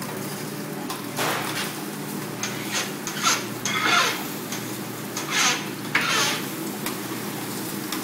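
Metal spatulas scraping and chopping across a flat-top steel griddle as a big batch of scrambled eggs is turned, in a string of short scrapes that come in quick bunches, the loudest a few seconds in. A steady low hum sits under it.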